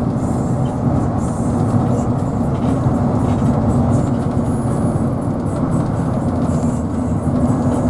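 Car driving along a highway with a steady, even rumble of road and engine noise.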